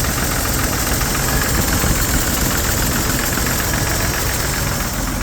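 1970 Chevy C10's 250 cubic-inch inline-six idling with a steady, distinct knocking, which the owner has been told could be lifters, a rod knock or worn bearings.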